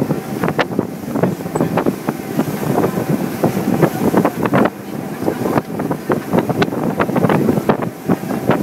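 Wind buffeting a phone's microphone in uneven gusts on the open deck of a boat under way, over the boat's steady running noise.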